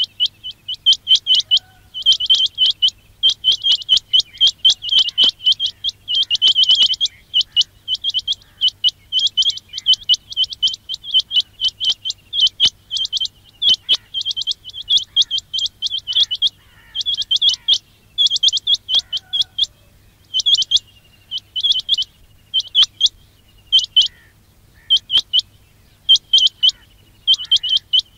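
Quail calling: clusters of rapid, high chirping notes, each burst about a second or less, repeated over and over with short gaps. A quail-call recording of the kind played to lure quail for trapping.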